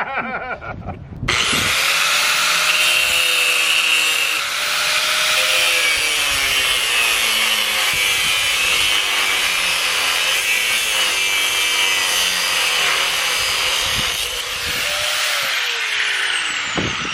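Angle grinder switched on about a second in and grinding into the hog trap's welded steel, a loud rasp with a wavering whine. Near the end it is released and spins down with a falling whine.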